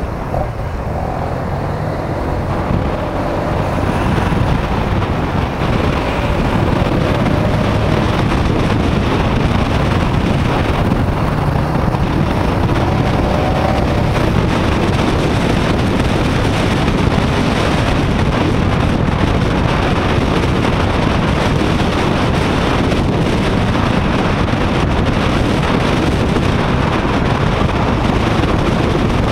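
Wind rushing over an SJ4000 action camera's microphone on a moving motorcycle, with the engine running underneath. The rush grows louder over the first several seconds, then holds steady.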